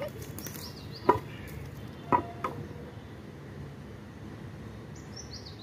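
Hard knocks of broken stone slab pieces being handled and set down: two sharp knocks about one and two seconds in, with a lighter one just after the second.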